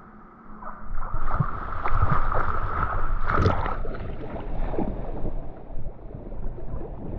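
Water splashing and churning as a whitewater kayak tips over and capsizes, starting about a second in, with the biggest splash about three and a half seconds in.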